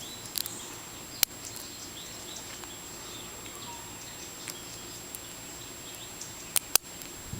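Lock pick and tension wrench working the pins inside a small Brooks padlock that is gummy with old lubricant: faint scratching and a few sharp metallic clicks, one about a second in and two close together near the end, over a steady hiss.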